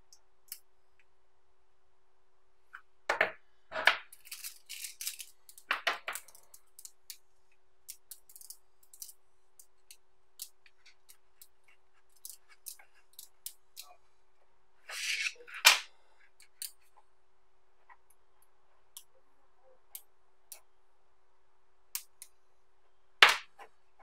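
Small magnetic balls clicking together as they are pulled apart and snapped back into rows by hand: irregular light ticks with a few sharp snaps, the loudest about 3 to 4 seconds in, near 16 seconds and just before the end.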